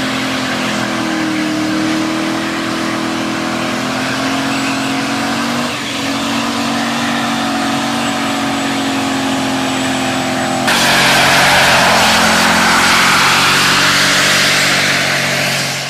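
Dodge Ram pickup's engine held at high revs in a burnout, the rear tyres spinning with a steady hiss of tyre noise. About two-thirds of the way through, the sound cuts abruptly to a louder, harsher take with more tyre noise.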